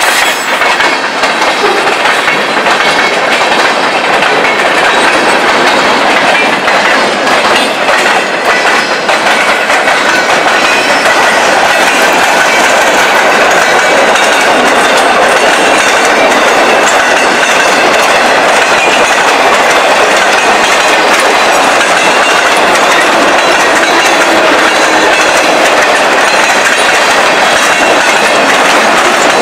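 Freight train cars rolling past on the rails. In the first several seconds the wheels click over rail joints, then a steady, dense rolling noise of boxcars passing close, with a faint high ringing from the wheels.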